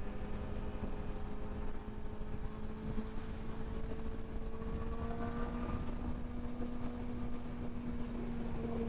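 Suzuki GSX-R sportbike cruising at highway speed: a steady engine hum under heavy wind and road noise at the bike-mounted camera, the engine note creeping up slightly about halfway through.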